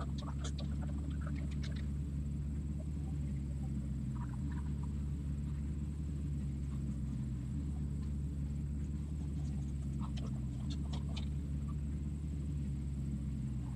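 Low, steady drone of heavy diesel machinery: a tracked horizontal wood grinder and the grapple-fitted excavator feeding it tree debris. The deepest note shifts slightly every few seconds, and scattered sharp clicks come near the start and again about ten seconds in.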